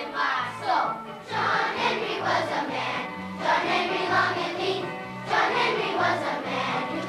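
Group of children singing a song together over an instrumental accompaniment, with a bass line keeping a steady beat.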